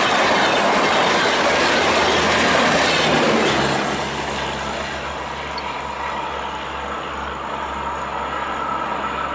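Passenger train rolling over track switch points. The wheel noise is loud for the first three and a half seconds, then drops away as the train clears, leaving a steadier, quieter rumble with a low hum.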